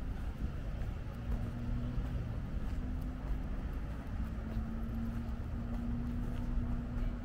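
Road traffic rumbling low and steadily, with a motor vehicle's steady engine hum that comes in about a second in, drops out briefly twice, then holds.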